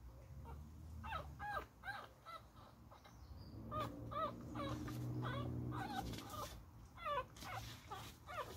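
Young beagle puppy whimpering: a long run of short, high squeaks, each bending up and down in pitch, several a second.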